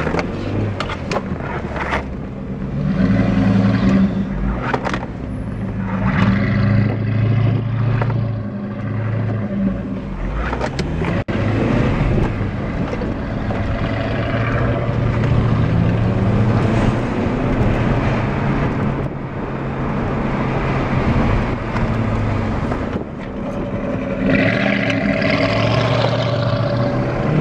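2004 Acura TSX's 2.4-litre four-cylinder engine accelerating under way. Its note climbs and falls back several times as it is shifted through the gears of the six-speed manual.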